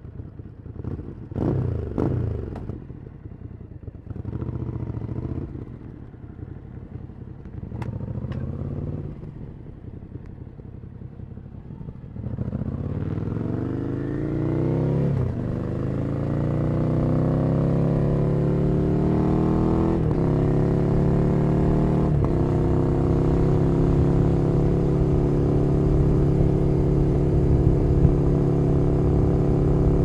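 Ducati Scrambler Nightshift's 803 cc air-cooled L-twin, breathing through a Zard Zuma slip-on exhaust, idles with a few short throttle blips. About twelve seconds in the bike pulls away and accelerates, rising in pitch, with three upshifts, then holds a steady cruise.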